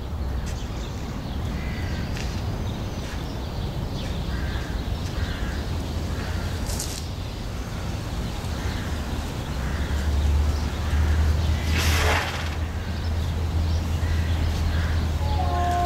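Outdoor ambience: a steady low rumble with birds calling repeatedly over it. There is a short burst of hiss about twelve seconds in.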